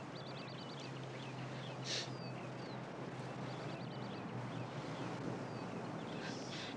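Small birds chirping, with a quick trill of about six notes near the start and again a little past three seconds, plus short falling whistles. A brief hiss about two seconds in, and another near the end, rise over a faint steady background hum.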